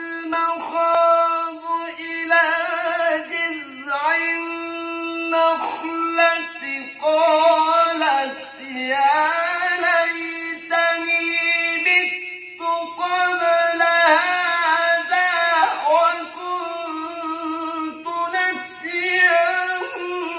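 A man's voice reciting the Quran in a melodic, ornamented style (tilawah), with long held notes and winding runs of pitch. The voice is heavy and turns hoarse quickly, which the title lays to a cough and flu.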